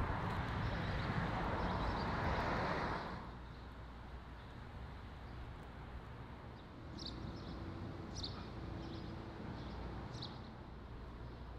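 Quiet outdoor ambience: a steady rush of road noise for about the first three seconds, then a low rumble with a few short bird chirps.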